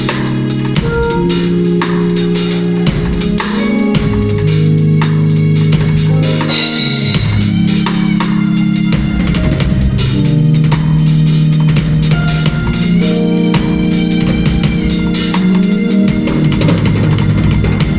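Music: sustained organ-like keyboard chords over a drum kit beat, played at a steady, loud level.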